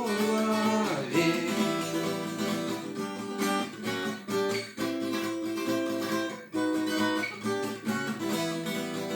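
Acoustic guitar strummed and picked, playing the song's closing instrumental passage after the last sung line.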